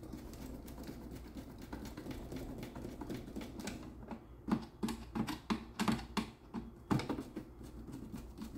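Irregular small clicks and knocks from a ceiling light fixture being fitted and fastened with its mounting screws, sparse at first and busier in the second half.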